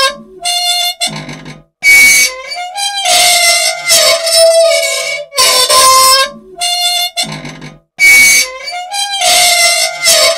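Loud, harmonica-like squealing and squeaking from an old machine, the kind of dry squeal that asks for oil. It comes in a cycle of held squeals broken by short gaps, repeating about every six seconds.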